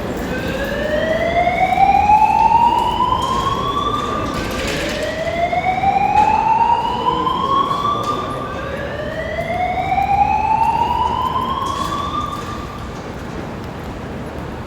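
Building fire alarm sounding its evacuation tone: three slow rising whoops, each sweeping up in pitch over about four seconds and cutting off before the next, then stopping shortly before the end.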